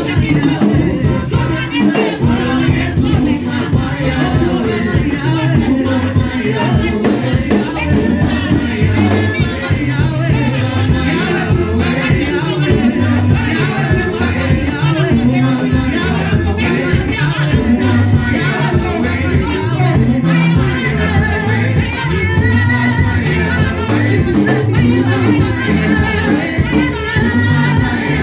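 Gospel worship music with singing over a band, carried by a strong, steadily moving bass line.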